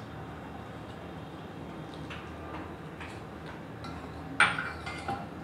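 Wire whisk scraping and tapping in a stainless steel bowl of thick spice and gram-flour paste: a few faint ticks, then one sharp clink about four seconds in and two lighter ones after it.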